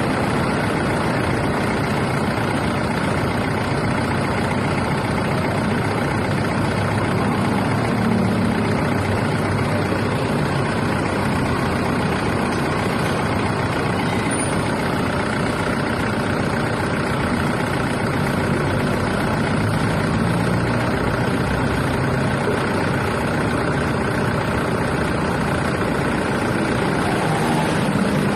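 Car engine idling steadily, a constant even noise with no change in speed.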